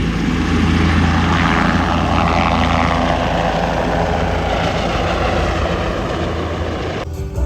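A loud, steady engine drone with a strong low hum, which cuts off abruptly near the end.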